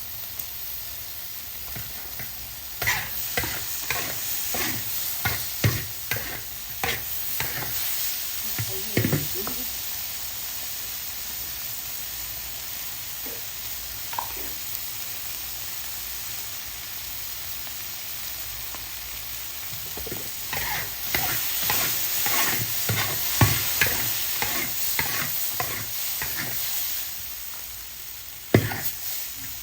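Food sizzling and frying in a pan, with a spatula stirring and scraping it in two spells of quick strokes and a sharp knock near the end.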